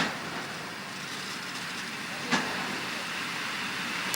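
ED4M electric multiple unit running on the track, a steady rolling rumble with a sharp clack about two seconds in.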